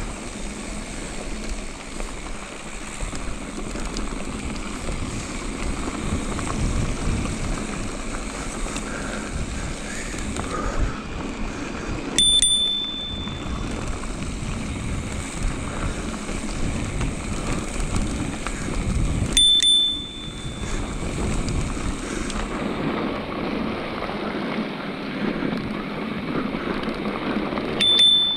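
Electric mountain bike rolling fast down a dirt singletrack: steady tyre and trail noise with wind on the microphone. A bicycle bell dings three times, single short rings several seconds apart, the last near the end.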